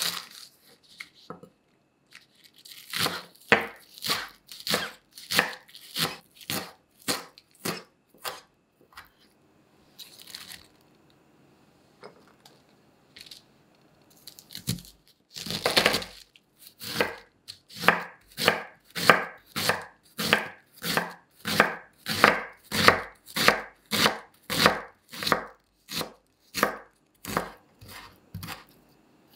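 Chef's knife chopping green onions on a wooden cutting board, a sharp stroke about twice a second. After a lull, the knife cuts into a wedge of raw cabbage with one long crunch, then shreds it finely in a steady run of crisp strokes, about two a second.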